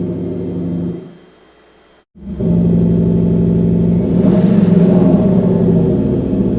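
Synthesized engine note from a Kufatec Sound Booster active sound generator, a steady rumbling drone with several pitched layers. It fades out about a second in, cuts out briefly, then starts again at a steady pitch and swells louder around four seconds in.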